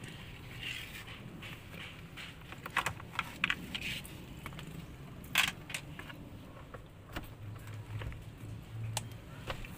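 Scattered light clicks and small rattles of a screwdriver and hands working screws out of a plastic steering-column cover, with the sharpest click about halfway through.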